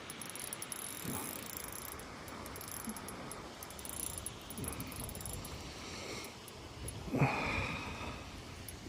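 Spinning fishing reel being cranked to bring in a hooked fish, its gears clicking, over the steady rush of a waterfall. A short, louder noise comes about seven seconds in.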